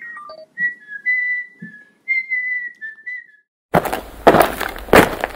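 A person whistling a short, hopping tune of high notes. The whistling stops after about three seconds, and after a brief pause loud, heavy beats over a noisy rush start, coming roughly every half second or so.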